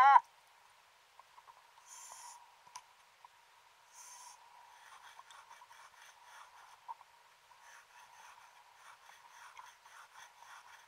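Stiff abrasive pad scrubbing concretion off a submarine's brass propeller underwater: repeated scratchy strokes that set in about five seconds in. A brief loud tone at the very start and two short hisses before the scrubbing begins.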